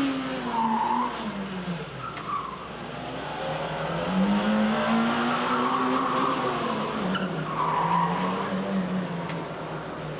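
A small hatchback's engine is revved hard through a gymkhana run. Its pitch drops about a second in, climbs again and falls once more as the car brakes and accelerates between cones. The tyres squeal briefly several times through the turns, with the longest squeal around the middle.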